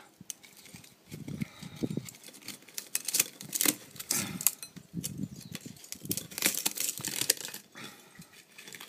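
Irregular sharp clicks and light clinks with some rustling: objects handled and set down, fitting utensils being fetched.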